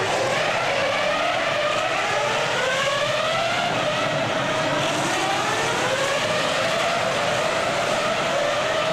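Racing car engines at high revs, several overlapping, their pitch sweeping up and down in long glides without a break.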